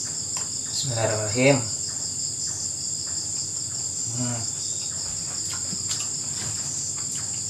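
Steady chorus of night insects, a high, fast-pulsing trill that runs on without a break.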